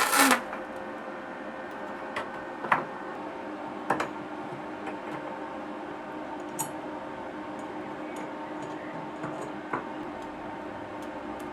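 A loud, even noise cuts off just after the start, leaving a steady faint hum with two tones, over which come a handful of light, sharp clicks and taps, spaced irregularly.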